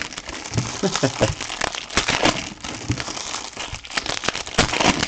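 Thin plastic crinkling and rustling with irregular light clicks as trading cards and their wrappers are handled.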